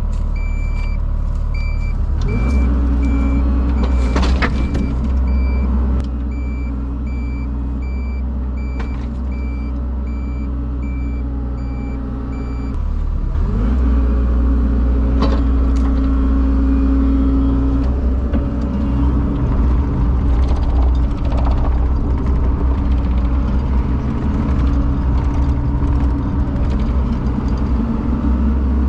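Heavy equipment engine running, revving up about two seconds in and again around halfway, with a backup alarm beeping in an even rhythm for roughly the first twelve seconds.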